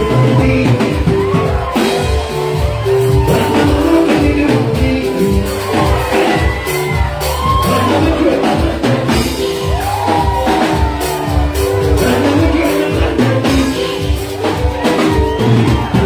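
Live band music with a steady beat: a male singer singing into a microphone over keyboard and a pounding low end.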